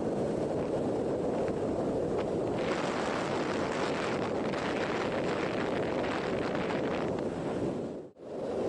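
Steady wind rushing over the microphone, as when moving at speed in the open. The sound cuts out abruptly for a moment about eight seconds in, then resumes.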